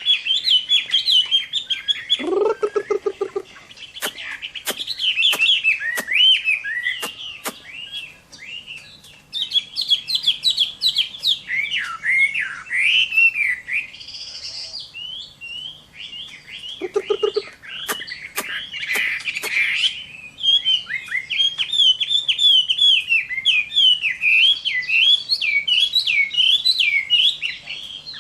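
Chinese hwamei singing its loud fighting song: a long run of rapid, varied whistled and warbled phrases. A short lower-pitched call breaks in about two seconds in and again about seventeen seconds in, with scattered sharp clicks.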